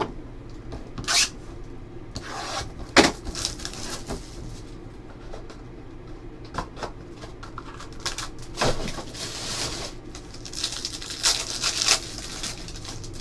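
A cardboard trading-card box being handled and opened, with a few sharp knocks and scrapes, then the foil wrapper of a card pack crinkling as it is torn open near the end.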